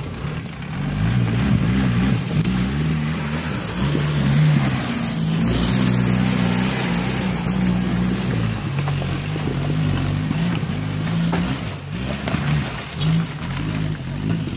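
An off-road 4x4's engine revving under load as it crawls over steep, rutted ground, its note rising and falling repeatedly. It eases off briefly about twelve seconds in.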